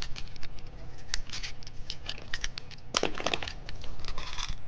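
Plastic candy packaging being handled and opened, crinkling and tearing in a run of short sharp crackles, thickest about three seconds in.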